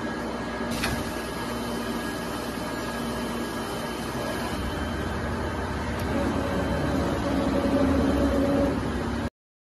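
Richpeace two-beam, double-head automatic sewing machine running: a steady mechanical whir with a hum, a sharp click about a second in, growing louder after about four and a half seconds, then cutting off suddenly near the end.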